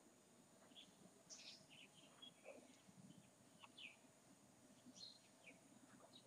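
Near silence: faint room tone with a scattering of faint, short chirps.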